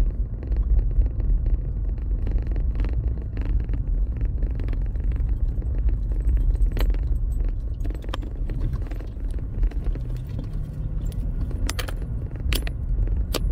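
Pickup truck driving on a gravel road, heard from inside the cab: a steady low rumble of tyres and engine, with a few sharp clicks and rattles, mostly near the end.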